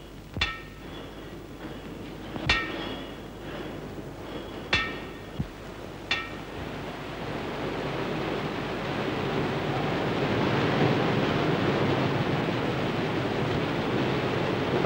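Four ringing metallic clangs, roughly two seconds apart, then the rumble of a steam train running into a station, growing louder and then steady.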